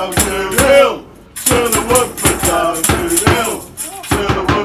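A small group of football fans chanting together, with a drum beaten in a steady beat under the voices. The chant breaks off briefly about a second in, then picks up again.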